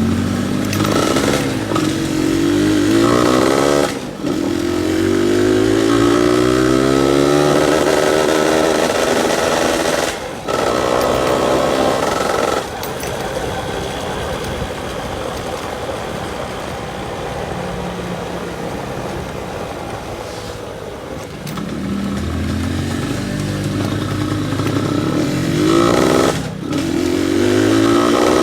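Yamaha F1ZR two-stroke single-cylinder motorcycle engine revved with light throttle, with the raspy two-stroke note called "ngorok". The revs climb in long rises about four or five times and drop back sharply each time. In the middle the engine settles into a lower, steadier running for several seconds.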